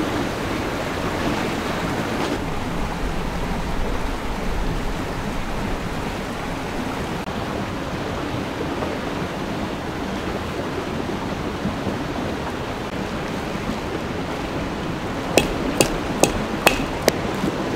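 Steady rushing background noise, then near the end five sharp knocks about half a second apart: a tarp stake being hammered into the ground.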